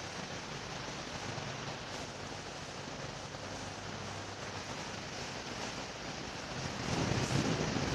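National FMY159 industrial ceiling fan running: a steady rush of moving air with a faint low hum. The air rush swells and buffets louder near the end.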